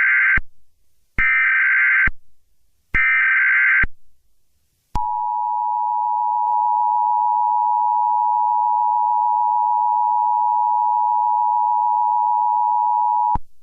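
Emergency Alert System tones: three short bursts of SAME header data, each just under a second long, then the steady two-tone EAS attention signal held for about eight seconds before cutting off sharply.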